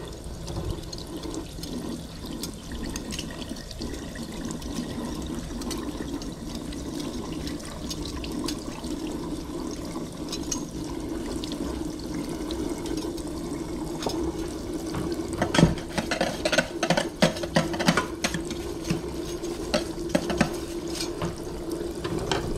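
Kitchen faucet spraying water into a stainless steel sink as a wire whisk is rinsed under it. In the second half, a run of sharp clinks and knocks as the metal whisk strikes the sink while it is cleaned.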